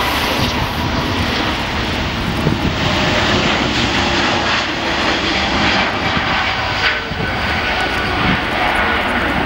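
Airbus A380's four Engine Alliance GP7270 turbofans at take-off thrust during the take-off roll and lift-off: loud, steady jet engine noise.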